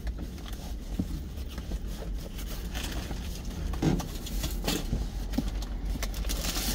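Rustling and a few light knocks from someone rummaging behind the seat of a truck cab, over a steady low rumble.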